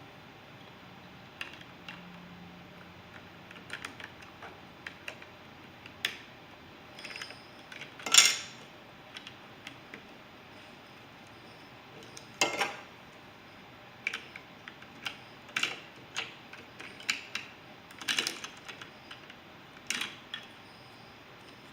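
Plastic Lego bricks being handled, clicked and clattered together in irregular sharp clicks, with two louder clatters about a third of the way in and past the middle.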